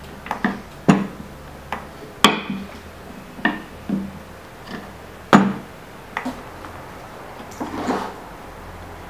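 Irregular knocks and taps of handling as a thin sheet of gum paste is lifted, turned and laid back down on a hard board. The louder knocks come about two seconds in and about five seconds in.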